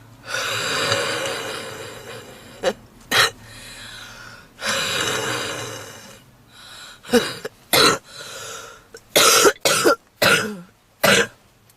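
A woman's smoker's cough: two long, noisy breaths, each followed by a short sharp cough, then a quick run of harsh coughs near the end. Coughing and wheezing of this kind are typical of smoker's bronchitis.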